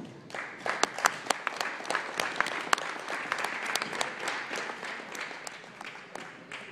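Small crowd applauding the winner of a wrestling bout, with several loud claps close by. The clapping starts just after the winner's hand is raised and thins out near the end.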